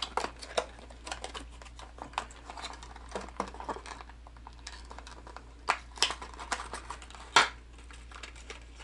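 Plastic fishing-lure package being pried open by hand: scattered small clicks and crinkles of the plastic, with a sharper snap about seven and a half seconds in.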